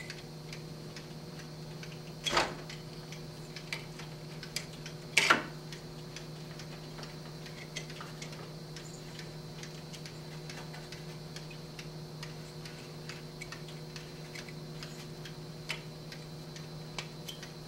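Steady ticking of a Schumacher SE-2158 battery charger's timer, which is switched on, over a steady low hum. Two louder knocks, about two and five seconds in, come from handling parts inside the charger's cabinet.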